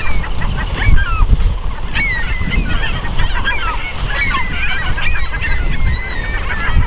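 A crowd of nesting gulls calling over and over at an intruder near their nests, many short overlapping cries. A loud low rumble on the microphone runs underneath.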